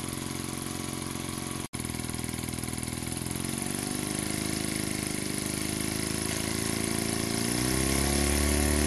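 Small brass single-cylinder model steam engine running with rapid, even exhaust beats. It speeds up and gets louder about three and a half seconds in and again near the end. The sound cuts out for an instant under two seconds in.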